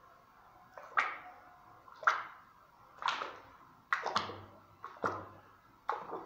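A bare hand mixing thick, wet acrylic screeding putty in a plastic bucket. The hand plunges into and slaps the paste with a wet squelch about once a second, starting about a second in.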